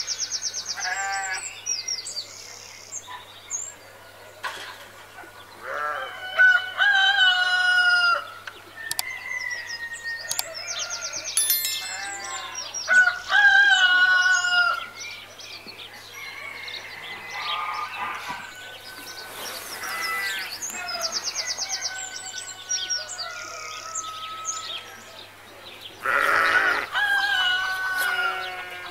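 Farmyard birds: roosters crowing several times and chickens clucking, with small birds chirping and trilling in high quick runs between the calls.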